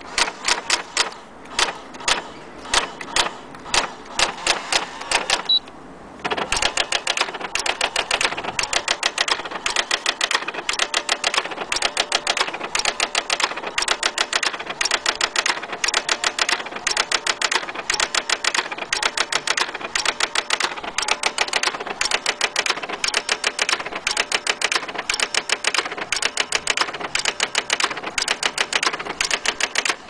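Brother AX-430 electronic daisy-wheel typewriter printing: the print mechanism strikes characters onto the paper, first in spaced strokes, then, after a short pause about six seconds in, in a fast, steady run of about five strikes a second.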